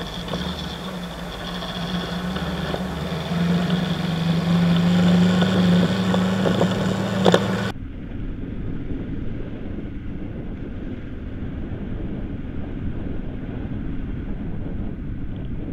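Kawasaki KLE 500 parallel-twin engine running under load off-road, heard from on the bike, getting louder and higher from about three to seven seconds in, with a sharp knock near the end of that stretch. After an abrupt cut about eight seconds in, the riding sound goes on duller and muffled.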